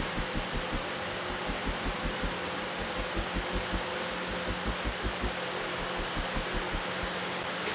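Steady hiss of a wall-mounted air conditioner running, with soft low thumps about four times a second underneath.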